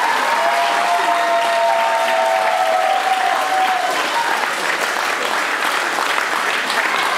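Audience applauding, with two long steady tones over the clapping that fade out about halfway through.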